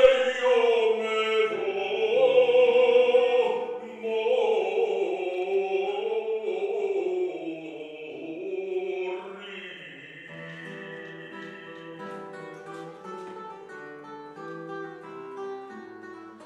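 Male singer with classical guitar accompaniment: the voice sings long held notes for about nine seconds, then stops, and the nylon-string guitar plays on alone in plucked notes, more quietly.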